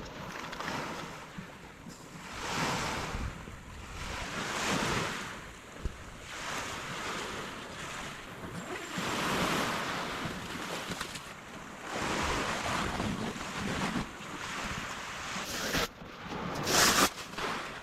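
Small waves washing in on a shore, the noise swelling and falling back every couple of seconds, with wind buffeting the microphone. A short, louder noise stands out near the end.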